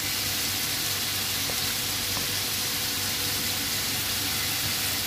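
Diced chicken breast sizzling in a frying pan with sautéed onion and garlic, a steady hiss.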